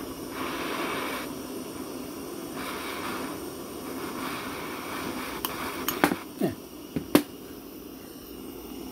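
Butane blow torch flame hissing steadily while it heats a brass pump tube. A handful of sharp clicks and knocks in the second half, the loudest about seven seconds in.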